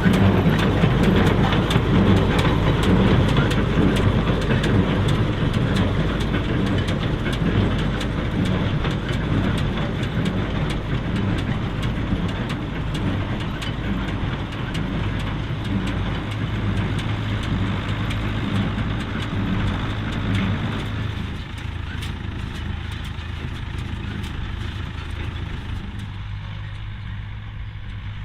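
David Brown 990 tractor's four-cylinder diesel engine running under load while driving a McCormick IH F5-91 small square baler, with the baler's rhythmic working and a clatter of small clicks over the engine's steady note. The whole sound fades steadily as the outfit moves away.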